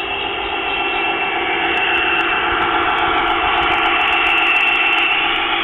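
G-scale model diesel locomotive running past close by: a steady mechanical hum with a high whine, growing louder as it nears, with faint clicks.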